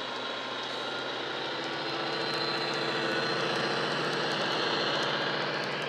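Recorded sound of a Class 57 diesel's EMD 12-645F3B engine, played from an ESU HiFi LokSound decoder through a model locomotive's small speaker, running steadily under power. It gets louder in the middle as the model passes close, with a few faint clicks over it.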